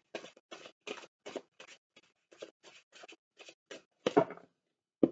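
A rapid, even run of light ticks, about four or five a second, as tarot cards are thumbed off the deck one by one; two louder single snaps follow near the end.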